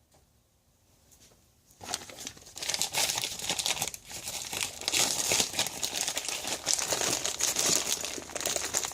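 A plastic bag crinkling and rustling as it is handled and rummaged through, starting about two seconds in.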